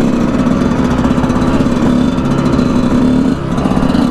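Dirt bike engines running steadily, with a brief drop in engine note about three and a half seconds in. The bikes are warming up and include two-stroke Yamaha YZs.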